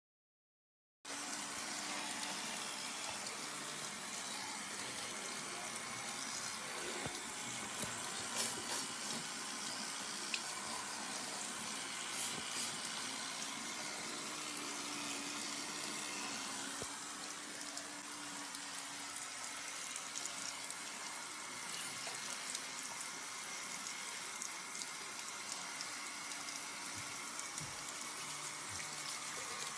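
Tap water running steadily into a bathroom sink, starting about a second in, with a few faint clicks and knocks.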